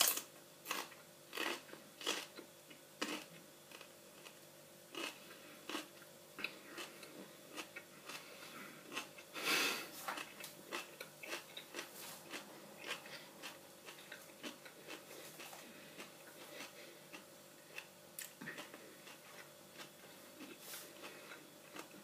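A person biting into and chewing a whole raw green chilli close to the microphone: crunchy bites and wet chewing clicks. They come thick and fast for the first ten seconds or so, with a louder rush of noise about nine and a half seconds in, then thin out to slower, scattered chewing.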